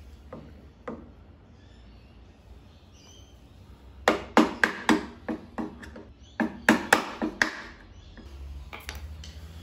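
Hammer tapping a screwdriver held against a lawnmower wheel hub, driving the retaining clip onto the axle: about a dozen sharp taps in two quick runs in the second half, after a couple of small clicks near the start.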